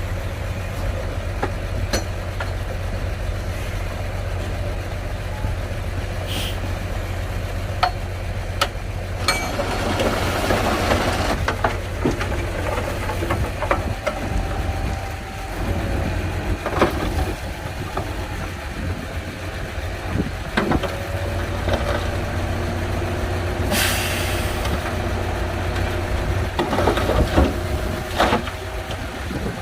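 Komatsu D41P crawler bulldozer's diesel engine running steadily as it works, with intermittent metallic clanks from the tracks and blade and a brief hiss about three quarters of the way through.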